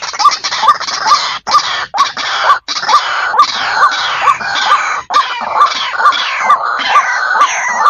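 White-breasted waterhen calling: a fast, steady run of loud croaking notes, about three a second, with several brief dropouts where the recording cuts out.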